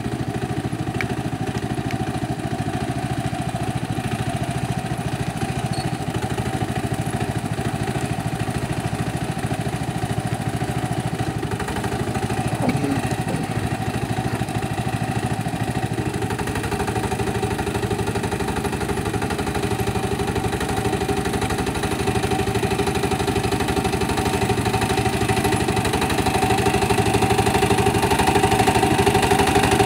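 Small engine of a homemade tractor running steadily as it pulls a furrowing implement through garden soil, getting louder near the end as it comes closer.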